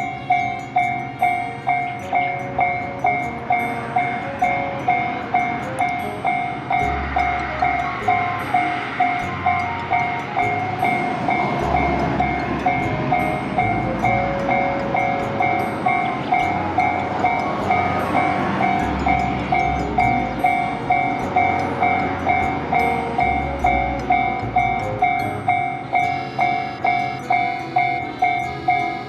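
Railway level-crossing warning bell ringing at an even pace of about two strikes a second, signalling an approaching train. A broader rushing noise swells under it through the middle.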